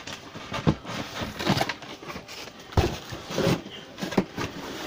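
Cardboard box and packaging being handled during an unboxing: irregular rustling with scattered knocks and clicks.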